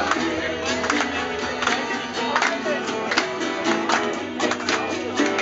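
Acoustic guitar and a second plucked string instrument strummed briskly in a lively folk tune, with a steady even rhythm of strokes and singing over it.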